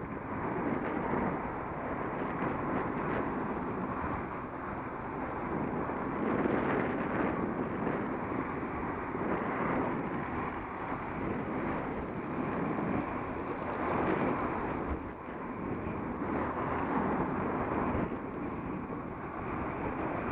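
Wind buffeting the microphone of a Contour Roam action camera as it moves along, a continuous rushing rumble that swells and dips every second or two. A faint high whine comes in about halfway through.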